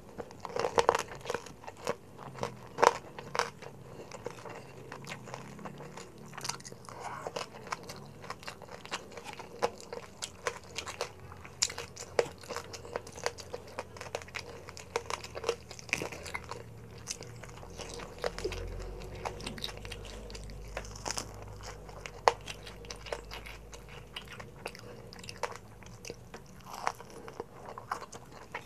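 Close-miked crunching and chewing of crispy deep-fried pork belly (lechon kawali): repeated sharp, crackly bites and chews of the crunchy skin.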